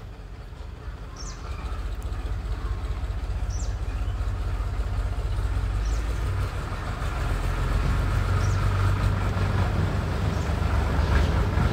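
Low, steady machine rumble that grows slowly louder, with a few faint, short high chirps over it.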